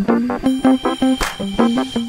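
Background music: an upbeat electronic tune of short, quick notes with a brief cymbal-like hit about a second in.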